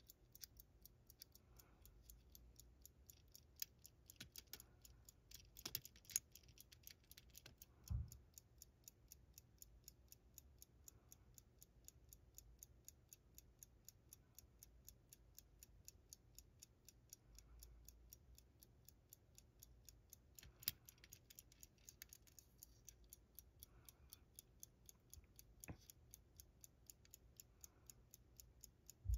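Faint, quick, even ticking of a running E. Ingraham Sentinel mechanical pocket watch movement, with a few louder knocks and a soft thump in between.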